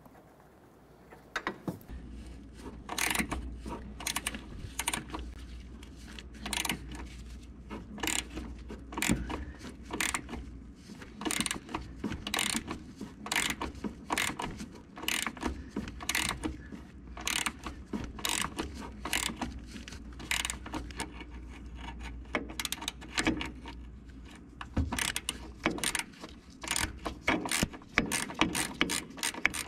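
18 mm ratcheting wrench clicking in quick runs as it is swung back and forth, turning a rusted nut off the upper control arm bolt a little at a time.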